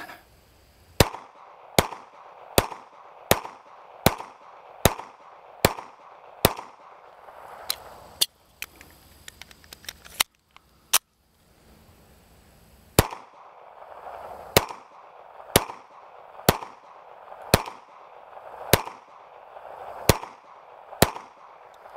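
Walther CCP pistol firing steady, slow strings of shots, about one a second: around eight shots, a pause of several seconds, then around eight more.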